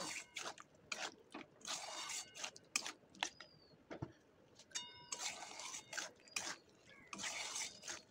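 A spatula scraping and stirring through thick potato masala in a metal kadai, a run of short irregular scraping strokes against the pan as the potatoes are sautéed in the spice paste.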